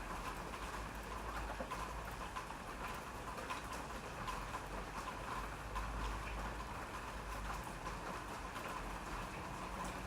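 Steady rain falling, with individual drops ticking on a surface over a continuous patter and a low rumble underneath.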